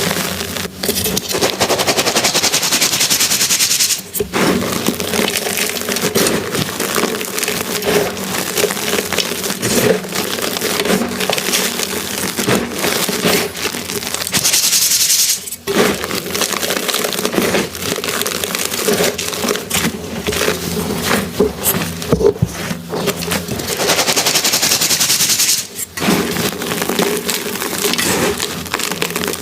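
Soft, dusty reformed gym chalk blocks being crushed: a dense run of crunching and crackling as the chalk crumbles, broken by a few brief pauses.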